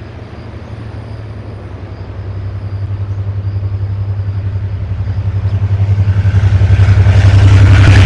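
Freight train hauled by two locomotives approaching: a low, steady engine hum that grows steadily louder, with the rushing noise of wheels on rails building in over the last two seconds.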